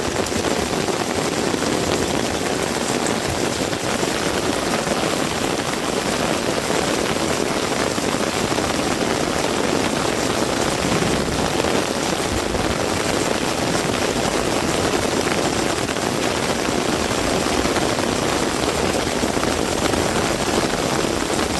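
Heavy rain falling steadily, an even wash of noise with no let-up.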